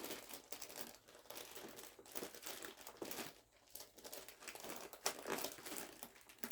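A cardboard box being opened by hand: irregular crinkling, rustling and tearing of its packaging and tape.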